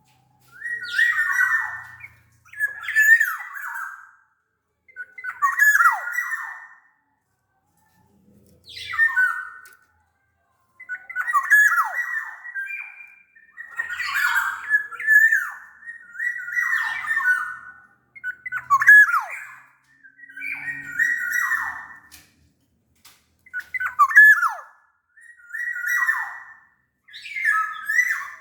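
Black-naped oriole (kepodang) calling over and over, about one short call every two seconds, each ending in a quick falling sweep.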